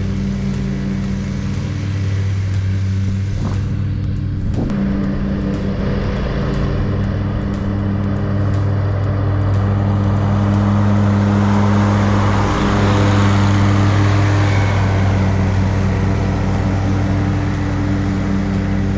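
Exmark Turf Tracer walk-behind mower's Kohler EFI engine running steadily under load as it mows grass, growing louder as it passes close about halfway through, then easing off as it moves away.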